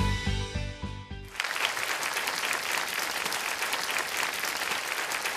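Background music ending about a second in, then a studio audience applauding steadily.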